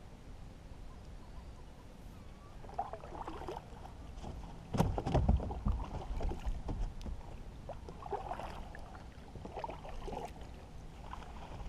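Paddle strokes and water splashing around a small boat moving through the marsh, with scattered knocks against the hull and a louder thump about five seconds in.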